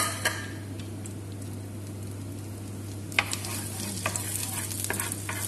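Butter sizzling and foaming in a nonstick frying pan, browning fast over too high a gas flame. About three seconds in, a wooden spatula starts stirring it, giving a run of irregular light knocks and scrapes against the pan.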